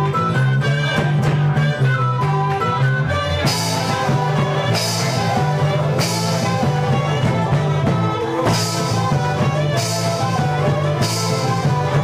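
Live band music with plucked guitar and a steady bass line. From about three and a half seconds in, a bright crash lands about every second and a quarter.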